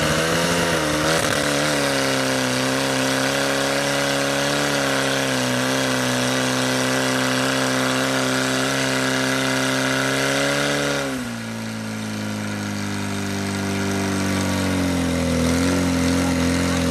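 Portable fire pump's engine running at high revs while pumping water out to the hoses. About eleven seconds in, the revs drop sharply, then climb again near the end.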